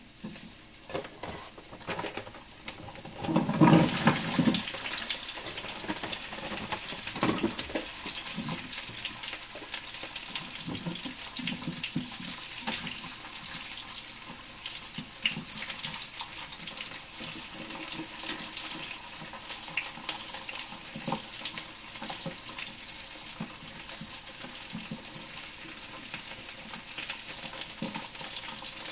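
Dumplings sizzling as they pan-fry in oil: a steady crackle with many small pops. A louder, fuller burst comes about three to four seconds in.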